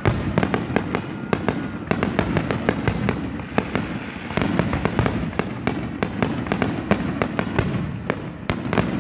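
Aerial fireworks shells bursting in a dense barrage: sharp bangs and crackles several times a second over a steady low rumble.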